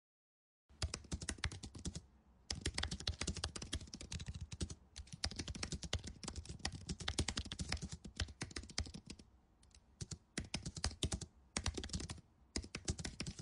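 Rapid computer keyboard typing, dense clicking in several runs broken by brief pauses.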